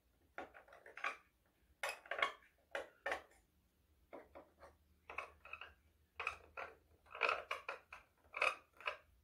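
Steel scribe scratching layout lines into a painted aluminum plate along a metal rule: a string of short, irregular scrapes and light clicks.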